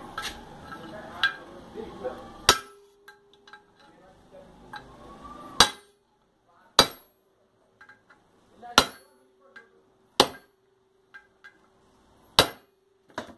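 A steel hammer strikes a punch about nine times, one to two seconds apart, each blow sharp and followed by a lingering metallic ring. The blows drive a ball bearing the last little way down into its seat in the aluminium crankcase half of a Sundown MAX 125 motorcycle engine.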